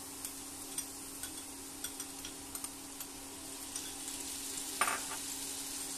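Grated vegetables sizzling gently in a pan, with a steady low hum and a few light clicks and taps as boiled green peas are tipped in from a bowl.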